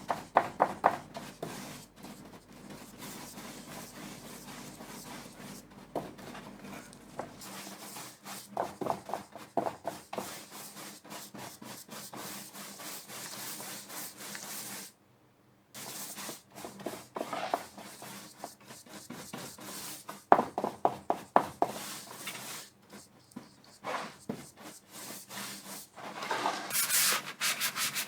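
Hand work on a wooden tray: short bursts of quick rubbing or scraping strokes with light knocks, becoming steadier sanding strokes near the end.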